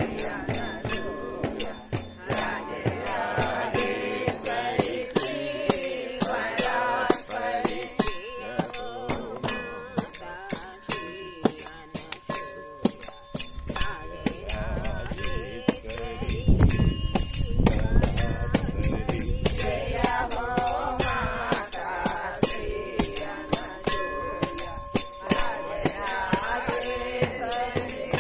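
A group of devotees singing a devotional chant together, with small hand cymbals clinking in a steady beat. A low rumble comes in for several seconds in the middle.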